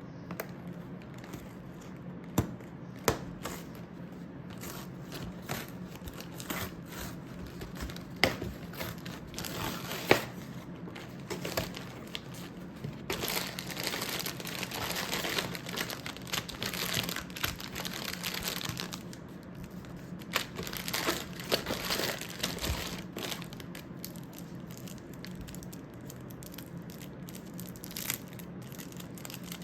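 Plastic packaging crinkling and rustling as it is handled, with scattered sharp taps and knocks. The rustling is heaviest in a long stretch past the middle.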